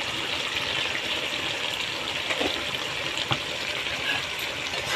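Jackfruit-and-prawn curry simmering in a kadai with ghee just poured on, a steady sizzling hiss with a couple of faint ticks in the middle.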